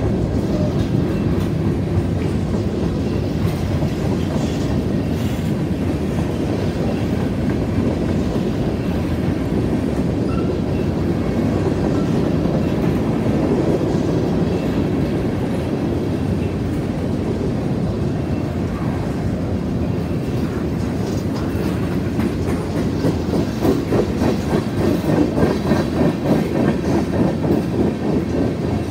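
CSX mixed freight train's covered hoppers and tank cars rolling past: a steady rumble of steel wheels on rail with clickety-clack. The wheel clacks become more distinct and rhythmic, about two to three a second, in the last few seconds.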